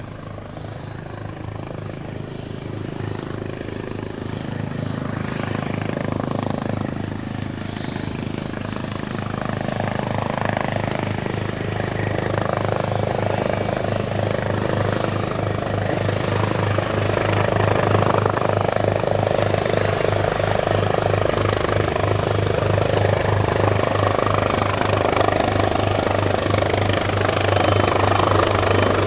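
Turbine helicopter's rotor beating steadily with engine noise, growing steadily louder, and a thin high turbine whine that strengthens about two-thirds of the way through.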